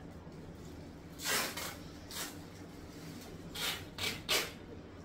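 Cloth rustling as an embroidered cotton dupatta and dress fabric are handled and spread out: about five short swishes, the loudest about a second in.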